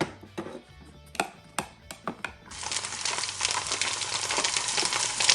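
Light plastic clicks and knocks from toy cookware pieces, then, about two and a half seconds in, a toy camp stove's sizzling sound effect: a steady hiss that comes in suddenly and runs on.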